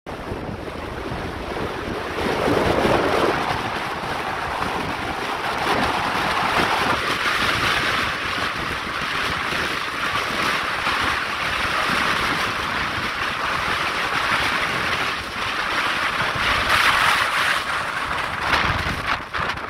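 Wind rushing over the microphone of a moving motorcycle, a steady noisy rush with gusts and no clear engine note. It starts and cuts off abruptly.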